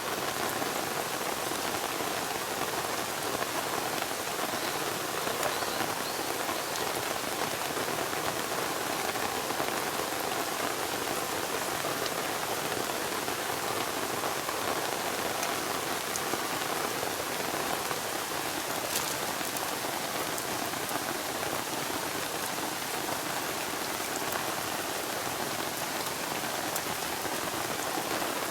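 Steady rain falling in a forest, an even patter with a few sharper single drops ticking through it.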